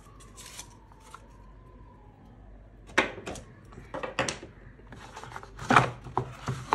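Packaging of a GoPro Enduro battery being opened by hand: quiet at first, then from about three seconds in a run of irregular crinkles, clicks and rustles as the pack is handled.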